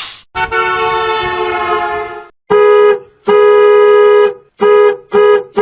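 A two-note horn sound effect: one long blast that fades away, then a rhythmic run of blasts, short, long, short, short and long, cutting on and off sharply.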